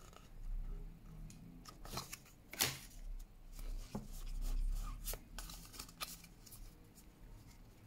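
Pokémon trading cards being flipped through by hand, card slid behind card, giving soft scattered clicks and rustles of card stock.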